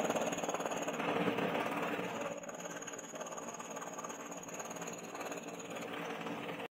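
Electric scroll saw running, its thin reciprocating blade cutting across a block of hardwood with a fast, steady rattle and a faint high whine. The sound cuts off abruptly at the end.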